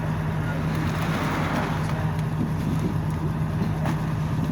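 A boat engine running steadily with a constant low drone, with a short burst of hiss about a second in and a few faint knocks.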